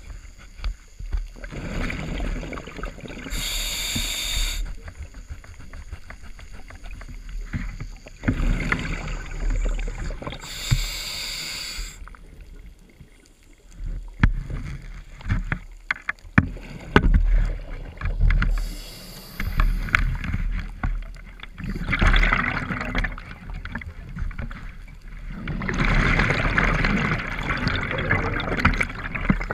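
Scuba diver breathing through a regulator underwater: short hissing inhalations with a thin whistling tone, then long spells of exhaled bubbles rumbling past the microphone, the longest near the end. Scattered sharp clicks in the middle.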